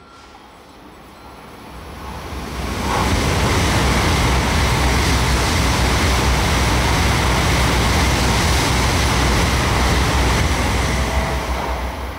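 Tokaido Shinkansen train passing through the station at speed without stopping: a loud rushing noise that builds over the first three seconds, holds steady with a deep rumble underneath, and begins to fade near the end.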